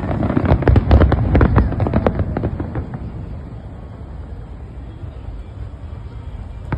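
Fireworks going off: a rapid run of sharp cracks and bangs over the first three seconds or so, then a quieter low rumble.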